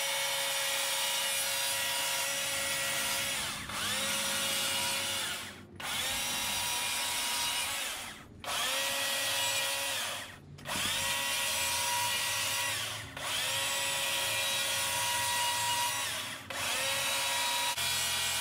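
Small-bar chainsaw cutting into a wooden carving block with short up-and-down cuts. It runs in stretches of two to four seconds, stopping briefly about six times and whining back up to speed each time.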